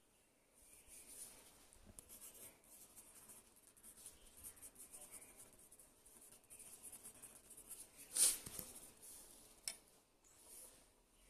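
Faint scratching and rubbing close to the microphone, like small handling noises on a desk, with a sharper scrape about eight seconds in and a short one a little later.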